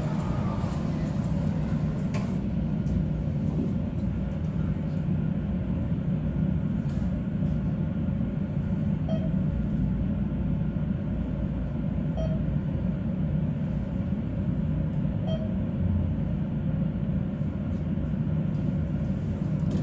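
ThyssenKrupp elevator car travelling, a steady low rumble and hum. Three faint short tones sound about three seconds apart midway through.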